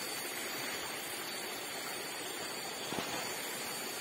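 Steady hiss of night-time outdoor ambience with a faint, thin, high steady tone running through it. A single small click comes about three seconds in.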